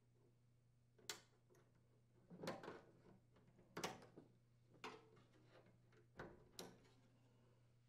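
Wire quick-disconnect terminals being worked off the metal spade terminals of a microwave's high voltage capacitor: about six faint, short clicks and scrapes, spaced a second or so apart.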